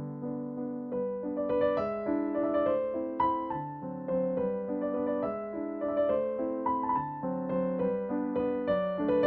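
Calm background piano music: a slow melody of struck notes over chords.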